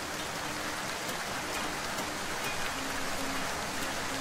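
Rain falling: a steady, even hiss, with occasional sharp drop ticks.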